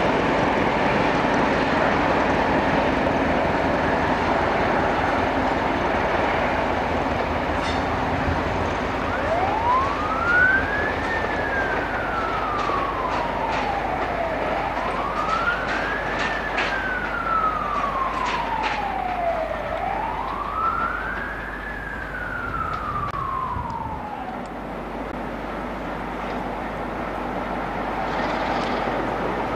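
Passing train running over the track at first. Then an emergency vehicle's wailing siren sounds three slow cycles, each rising quickly and falling away slowly, over the railway noise.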